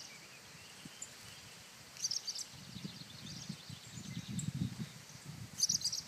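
Purple martins giving bursts of short, high chirping calls, about two seconds in and again near the end: agitated alarm calls at a cat. A low rustle runs underneath in the middle.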